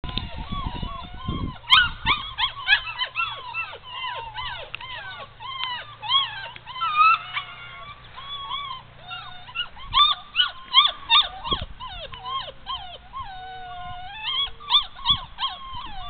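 Puppy whining and yelping: many short, high whines in quick succession, with one longer drawn-out whine about three-quarters of the way through.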